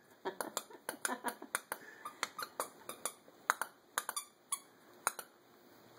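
Two dachshunds tugging and mouthing a plush toy: an irregular run of short, sharp squeaks and clicks, two or three a second, that stops about a second before the end.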